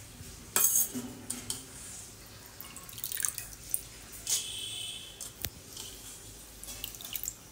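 Water splashing and dripping as a hand scoops soaked moong dal out of a steel bowl of water and drops the wet handfuls into a mixer jar, in irregular short bursts, the loudest about half a second in. One sharp click sounds about five and a half seconds in.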